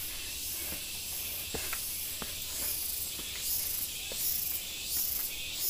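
A steady high-pitched insect chorus with a regular pulsing, as in a tropical forest, with soft footsteps on the dirt trail steps about every half second to a second.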